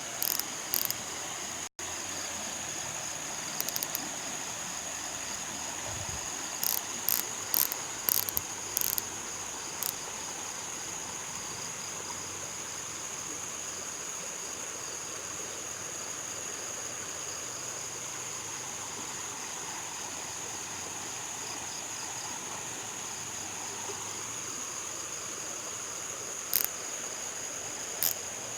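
Steady high-pitched insect chorus, a continuous trill, with several brief, louder high crackles scattered through it, a cluster of them a few seconds in and two more near the end.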